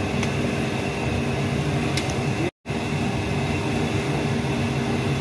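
Double-chamber popcorn roaster machine running with its drum turning: a steady mechanical drone with a constant hum. It drops out to silence for a split second about halfway through.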